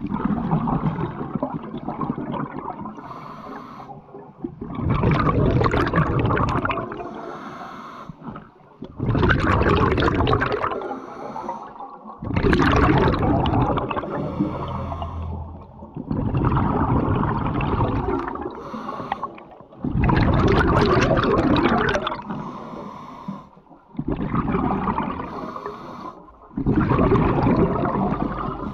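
Scuba diver breathing through a regulator underwater: a rush of drawn air and bubbling on each breath, in a regular cycle of about one breath every four seconds.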